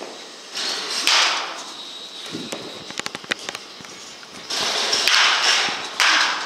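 Baseball bats hitting balls in an indoor batting cage: loud, sharp cracks that echo briefly in the hall, two about a second in and three more from about four and a half seconds on. Between them comes a quick run of small clicks.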